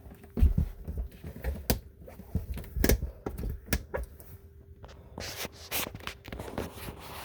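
Cable-driven slide-out of a 2015 DRV RV moving, a faint steady motor hum under irregular sharp clicks and snaps, clustering more densely near the end. This snapping as the slide goes out is the fault the owner is chasing.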